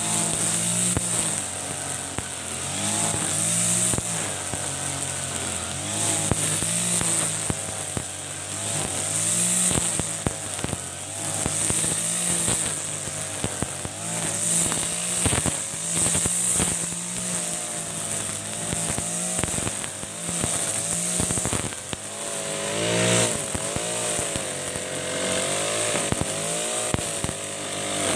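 Backpack brush cutter with an Ogawa GX35 four-stroke engine running under load, its revs rising and falling over and over as the throttle is worked, while the spinning nylon line cuts grass.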